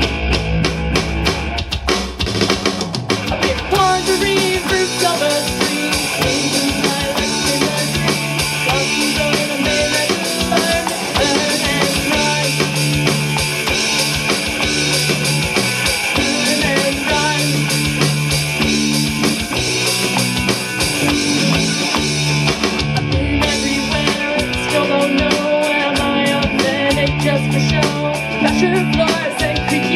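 Alternative rock song played by a band, with a steady drum kit beat and a bass line under it.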